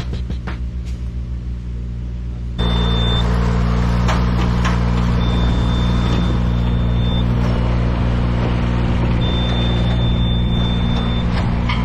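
An engine running steadily at a constant speed, stepping up louder about two and a half seconds in. A thin high tone comes and goes over it several times.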